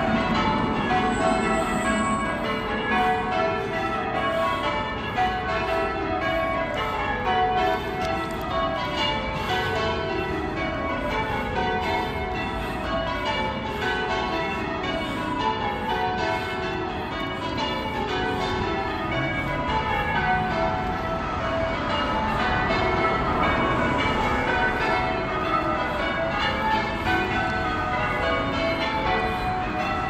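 Church tower bells rung in sequence, over and over: each round steps down from the highest bell to the lowest, about every two seconds, without a break.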